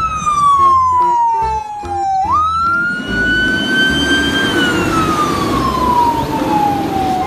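Fire truck siren wailing: the pitch falls over about two seconds, jumps back up, climbs slowly and falls again near the end. A rumble of engine and traffic sits beneath it from about three seconds in.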